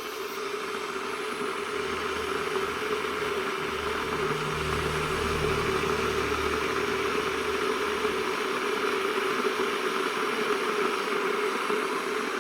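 Havells Aqua Plus 1.2-litre electric kettle heating water: a steady hiss with a low hum underneath, slowly growing louder as the water heats toward the boil.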